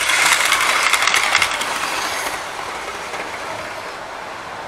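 Model railway locomotive passing close by on the track: a high whine with rapid wheel clicks over the rails, dying away about two seconds in. It runs less quietly than usual, a noise the owner thinks comes from the pickup wheels rather than the motor.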